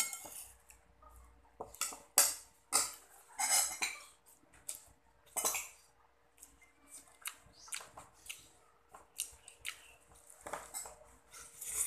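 Metal spoon scraping and clinking against a ceramic bowl of rice while eating: scattered, irregular clinks and scrapes.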